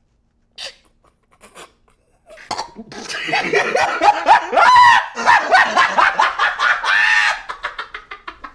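A man bursting into loud laughter. A couple of short stifled snorts come first, then a long fit of laughing from about two and a half seconds in, dying down near the end.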